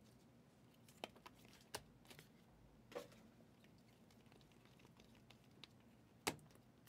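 Near silence broken by a handful of faint, short clicks: glossy Prizm football trading cards being flipped through a stack in the hands.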